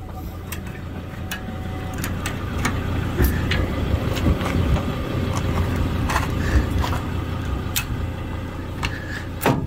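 A vehicle engine running at low revs as it is backed up slowly, with scattered clicks and knocks.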